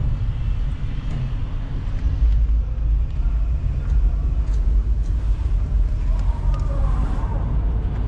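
Steady low rumble of a car on the move, heard from inside the cabin: road and engine noise, with faint voices near the end.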